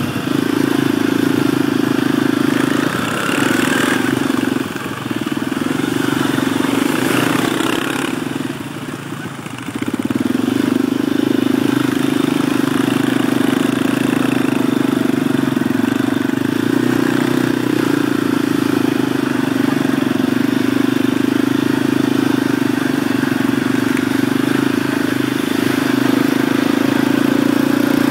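Quad bike (ATV) engine running steadily while riding over a dirt track. The engine note drops briefly about nine seconds in, then picks up again and holds steady.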